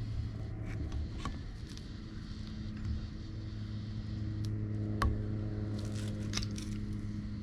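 Hand work on an outboard motor's water pump parts: a few scattered light clicks and scrapes of parts and tools being handled, over a steady low hum.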